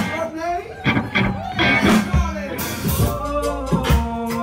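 Live band music: a woman singing an R&B tune over electric guitar, drum kit and a deep bass line.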